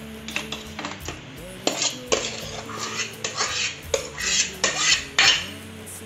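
Metal ladle scraping and clinking against a pressure cooker and its lid as cooked rice is scooped and stirred: a run of sharp scrapes and clinks, coming thicker and louder in the second half.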